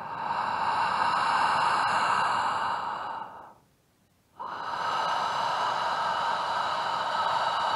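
Ujjayi (ocean) breathing through the mouth with the throat slightly constricted: two long, even rushing breaths of about four seconds each, with a short pause between.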